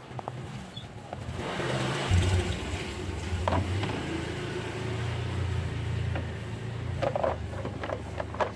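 Heat gun set to low blowing on a washed air filter element to dry it: a steady rush of air with a low motor hum that starts about a second in and runs for about five seconds, followed by a few short knocks of handling near the end.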